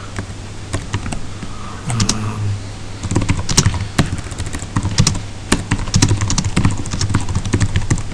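Computer keyboard typing: a run of irregular key clicks, sparse at first and quicker from about three seconds in, over a low steady hum.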